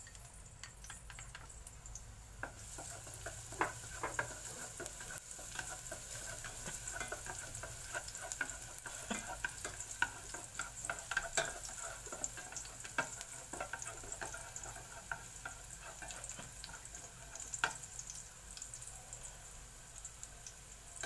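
Minced garlic frying in cooking oil in an aluminium pot, a light sizzle that grows about two and a half seconds in, with wooden chopsticks clicking and scraping against the pot as the garlic is stirred until fragrant.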